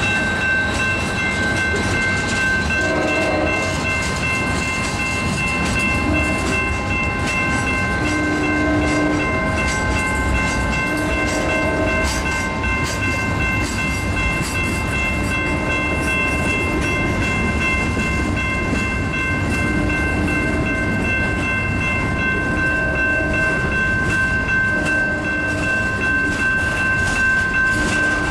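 Freight train rolling past at close range, wheels rumbling and clacking over the rail joints. Underneath runs a steady high ringing of several tones held through the whole stretch, with short lower tones now and then.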